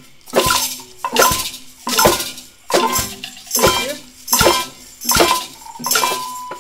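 A group of improvising players striking assorted instruments and objects together in short, loud hits on the conductor's cue. There are about eight hits, one every three-quarters of a second or so, each with a brief ringing after it.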